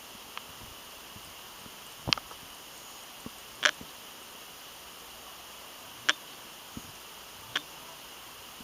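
Steady hiss broken by five short, sharp clicks, the loudest about two and three and a half seconds in.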